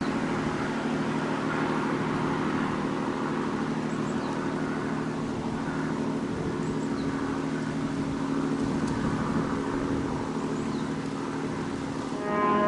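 A steady engine drone with a rushing noise over it, holding an even low hum throughout. Background music comes in just before the end.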